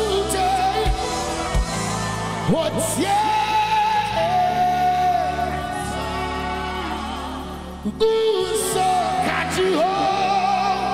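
Live gospel singing with a band: several vocalists hold long sung notes over keyboards and band backing. The music drops briefly about eight seconds in, then comes straight back.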